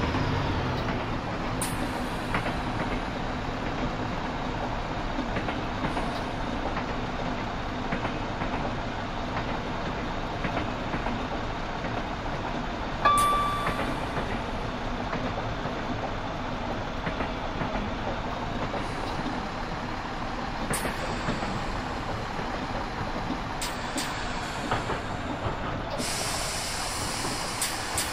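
Class 172 Turbostar diesel multiple unit running, a steady rumble of the moving train. A short, sharp high tone sounds about halfway through, and a hiss rises near the end.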